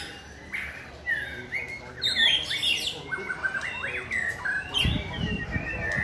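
Caged shamas singing: clear whistled notes that glide up and down, several birds overlapping, ending in a run of quick repeated notes. A brief low rumble comes about five seconds in.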